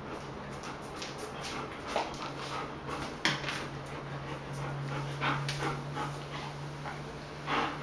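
German Shepherd panting in short, irregular breaths, over a steady low hum.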